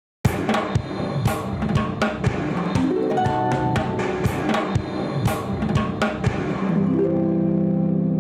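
Music with a drum kit: it starts abruptly with steady drum and cymbal hits, then settles into a long held chord about seven seconds in.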